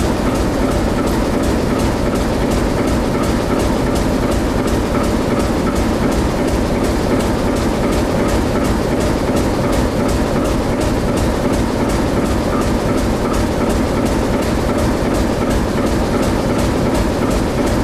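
Czechoslovak class 749/751 ('zamračená') diesel locomotive standing with its engine running at idle: a loud, steady diesel sound with a fast, even beat.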